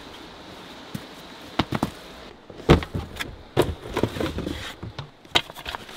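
Handling knocks and rustles: a blue plastic gold pan being handled in its cardboard box, a string of separate knocks and clicks, the loudest about three seconds in.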